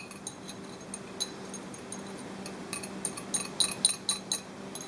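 Metal spoon clinking and scraping against a glass bowl as the dressing is scooped out of it, light scattered clinks that come thickest in the second half.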